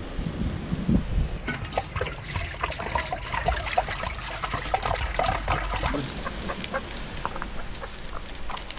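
Water splashing and gurgling as it is poured from a large plastic water jug into a cooking pot.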